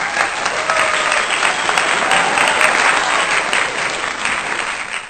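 Audience applauding: dense, steady clapping with a few faint voices in it, cutting off sharply at the end.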